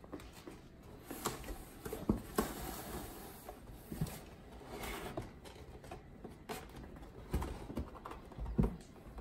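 Two Norwegian Forest Cats play-fighting on a cardboard box: paws thumping and scuffling on the cardboard in irregular knocks, the loudest about two seconds in and near the end.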